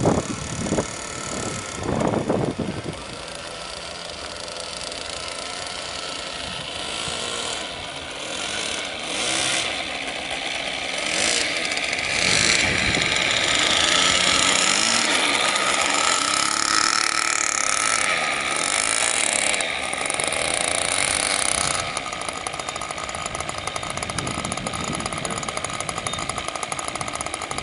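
Model airplane .40 glow engine running, its pitch rising and falling, with wind gusting on the microphone in the first few seconds. About three-quarters of the way in it drops to a lower, steady idle.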